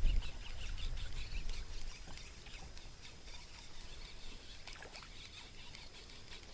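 Quiet outdoor lake ambience: a low rumble during the first two seconds that then fades, with faint bird chirps scattered throughout.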